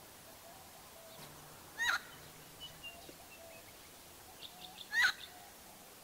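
Friarbird (koak-kaok) calling: two loud, short calls about three seconds apart, with softer notes in between.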